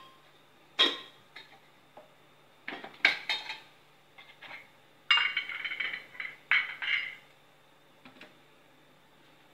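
Metal kitchen utensils and dishes clinking and clattering: a few sharp knocks, then a longer rattle of metal on metal about five seconds in.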